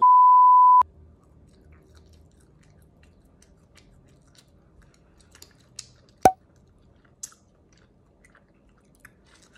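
A steady electronic beep lasting just under a second, then faint chewing of a strawberry tajin fruit roll-up, with one sharp click about six seconds in.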